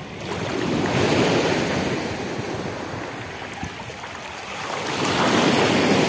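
Light sea waves washing and lapping. The sound swells and fades twice.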